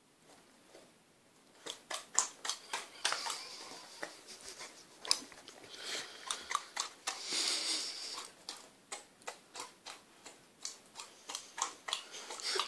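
An Akita puppy chewing and smacking her lips on sticky food that clings to her mouth: rapid, irregular wet clicks and smacks that start about two seconds in.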